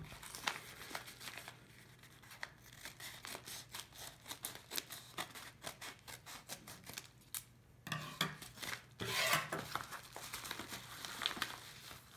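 Scissors snipping through a plastic mailer bag in a run of short, crisp cuts. About eight seconds in there is a louder stretch of the bag's plastic rustling and crinkling as it is handled open.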